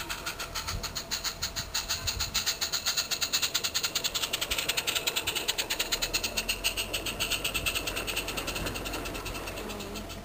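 16mm-scale live-steam Roundhouse Katie locomotive fitted with a Summerlands Chuffer, giving a rapid, even exhaust chuff as it climbs a steep 1:25 gradient under load. The beats are loudest a couple of seconds in as it passes, then fade as the train moves away.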